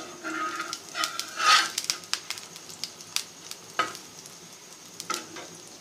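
Gram-flour batter pancake sizzling in ghee on a flat iron tawa, with a spatula scraping and clicking against the griddle as it is turned over.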